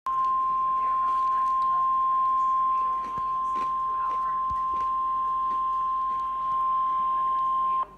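NOAA Weather Radio warning alarm tone, the single 1050 Hz tone, held steady for nearly eight seconds and cutting off just before the end. It is the signal that a weather warning message follows.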